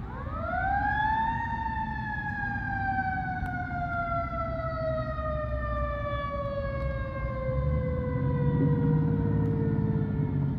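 Fire engine siren winding up fast over about a second and a half, then slowly winding down in one long falling wail. A low rumble of engines underneath grows louder near the end.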